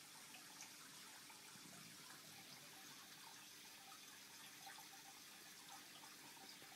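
Faint, steady trickle of aquarium water circulating, with small drips.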